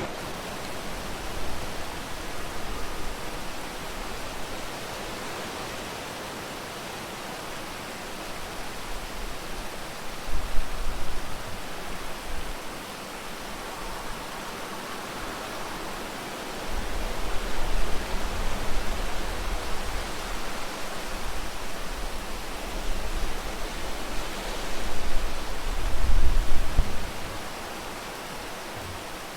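Steady rain falling, an even hiss. Three times a low rumble swells up under it and fades: about a third of the way in, briefly; then for a few seconds just past halfway; and again loudest near the end.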